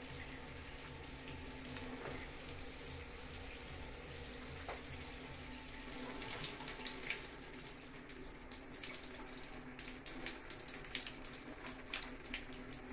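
Water from a Hydra electric shower head spraying steadily onto the tiled wall and floor. From about six seconds in, irregular splashes as a hand is held in the stream.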